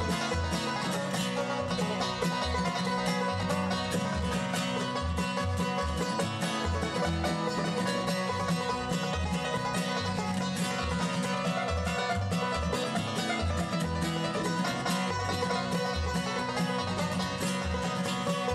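Bluegrass band playing an instrumental with a steady beat: banjo picking over acoustic guitar and mandolin.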